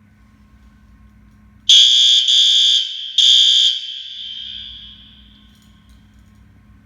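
System Sensor SpectrAlert Advance fire alarm horn going off briefly during a walk test: three loud blasts in quick succession, the last one ringing on and fading away over about two seconds.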